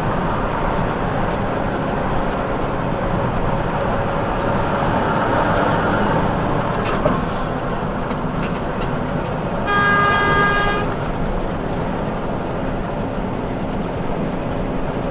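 Steady traffic noise, with a vehicle horn sounding once for about a second a little past the middle.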